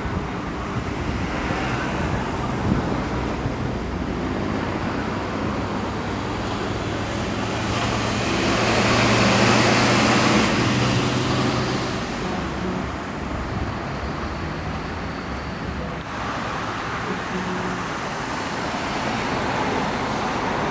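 Steady road traffic passing, with a heavy vehicle's engine drone growing louder as it passes close, about eight seconds in, and fading by about twelve seconds in.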